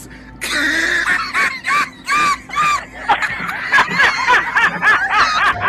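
High-pitched, rhythmic laughter: a run of short 'ha' pulses that quicken about three seconds in.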